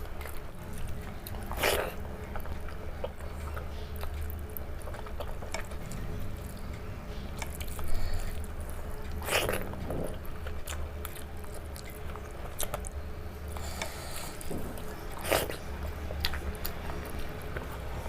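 Close-miked eating sounds: chewing and wet mouth clicks while eating a meal of rice, dal, greens and fish, with three louder mouth sounds spread through it. A steady low hum runs underneath.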